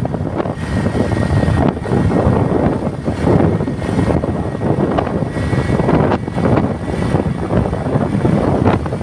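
Wind buffeting the microphone of a moving open vehicle, with engine and tyre noise from the road underneath; a loud, rough rush that wavers unevenly in strength.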